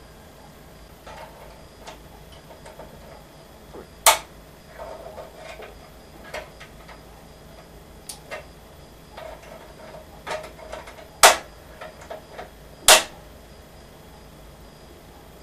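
African grey parrot's beak tapping and clicking against hard plastic casing: scattered soft clicks, with three sharp, loud clicks about four, eleven and thirteen seconds in.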